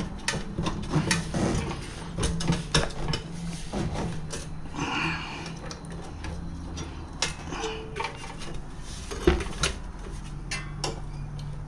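Metal hand tools clinking and knocking against the metal of a mini bike's engine mount and jackshaft as a 13 mm bolt is worked loose: irregular sharp clicks and clanks, with a steady low hum underneath.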